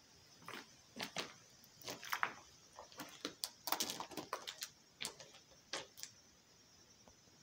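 An irregular run of sharp close clicks and crunches, some in quick clusters, from about half a second in until about six seconds, over a steady high chorus of insects.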